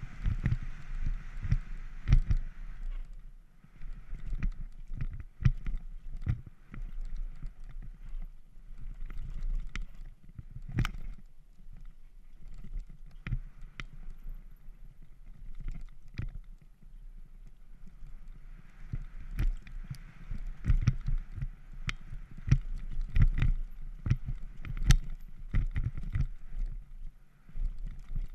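Banshee Legend downhill mountain bike descending a dirt trail, heard through a GoPro Hero3: a steady low wind rumble on the microphone under frequent sharp clicks and knocks from the bike's chain and suspension over roots and bumps. There are stretches of hiss from the tyres on loose dirt near the start and again about two-thirds through.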